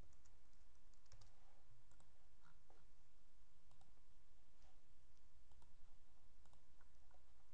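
Scattered clicks of a computer mouse and keyboard, short and irregular, over a faint steady background hum.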